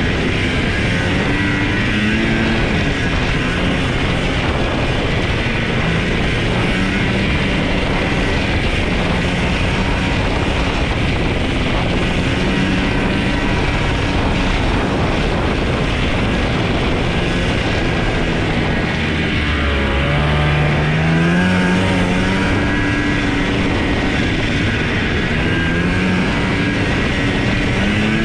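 1989 Ski-Doo Enticer 340 snowmobile's two-stroke engine running under way along the trail, its pitch shifting with the throttle. About twenty seconds in the revs drop, then climb again over the next couple of seconds.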